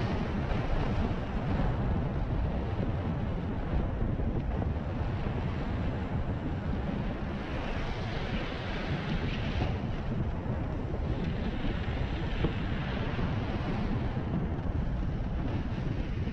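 Steady rush and low rumble of wind buffeting the microphone of a rider on a moving electric unicycle, with no breaks.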